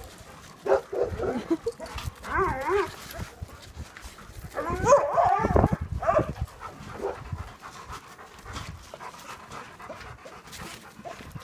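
Dogs panting while playing fetch, with short wavering calls about two and five seconds in.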